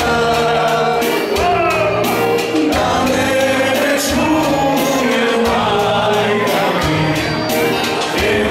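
Live Macedonian folk song: a man singing over an electronic keyboard accompaniment with a steady percussive beat.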